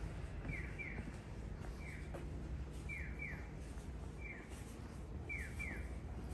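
Short falling electronic chirps of a Japanese audible pedestrian-crossing signal. Pairs of chirps alternate with single chirps about once a second, over a faint low background hum.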